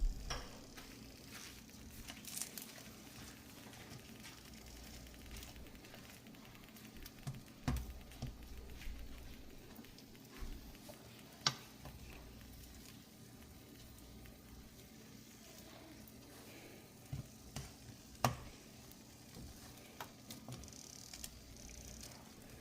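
Faint sizzling of turon frying in oil and caramelizing sugar in a pan, with a few sharp knocks of a utensil against the pan.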